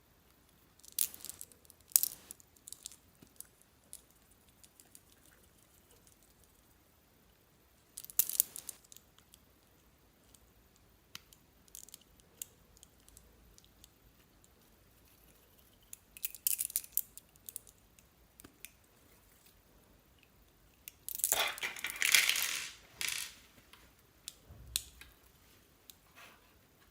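Slime being squished and worked by hand: four bursts of crackly clicks and pops with quiet gaps between, the last burst near the end the longest and loudest.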